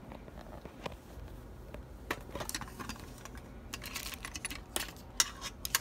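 Handling noise: scattered light clicks and taps as objects are moved about by hand, with a brief scraping rustle about four seconds in.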